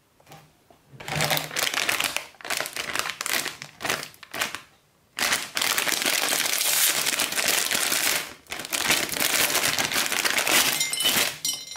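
Plastic instant-ramen packet (2x Spicy Hot Chicken Flavor Ramen) crinkling loudly in bursts as hands open it, with a brief pause about five seconds in.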